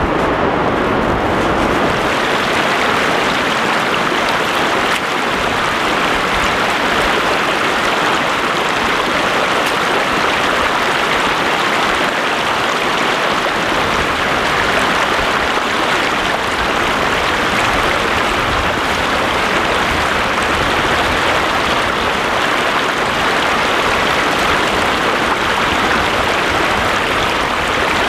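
Shallow water running steadily over rocks and pebbles close by, an even rushing that holds without a break.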